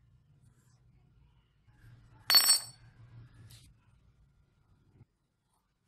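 Rusty claw-hammer head dropped onto a concrete floor: one sharp metallic clank with a brief ringing, then a faint tick about a second later.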